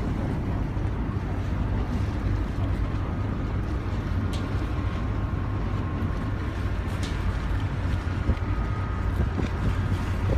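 Boat's engine running steadily under way, a low rumble, with wind noise on the microphone.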